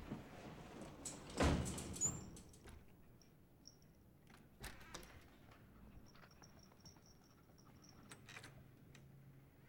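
An elevator door slides shut with a thud about one and a half seconds in. After it come faint, high, squeaky whimpers of a small dog in short runs.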